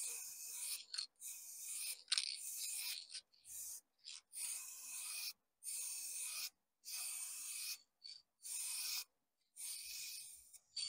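Aerosol spray-paint can hissing in about eight short sprays of roughly a second each, with brief pauses between, as paint is dusted lightly onto a sheet of paper.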